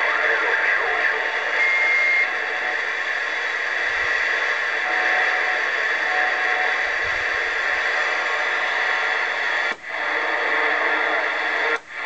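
Cobra 148 GTL CB radio speaker giving a steady rush of static from atmospheric skip, with faint whistling carrier tones in it. The hiss cuts out briefly twice near the end as the channel selector is clicked from 27 toward 29.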